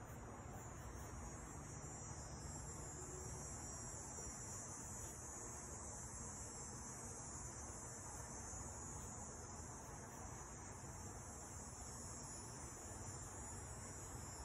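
Faint, steady high-pitched hiss or chirring with a low hum beneath, unchanging throughout.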